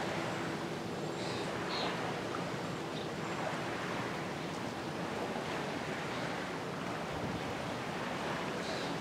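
Steady rushing wind in the trees and on the microphone, an even hiss with no clear pitch.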